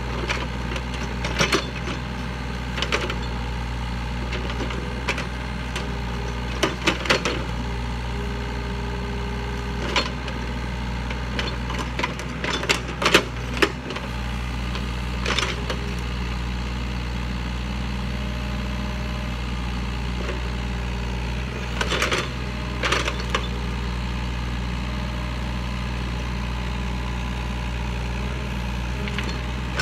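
Yanmar mini excavator's diesel engine running steadily while the bucket digs around a tree stump. Scattered knocks and cracks come from the bucket working soil and roots, in short clusters about a third of the way through, near the middle and about three quarters of the way through.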